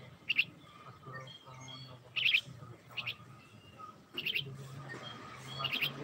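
Myna giving short, sharp, harsh chirps about four times, the loudest a double call just after two seconds in.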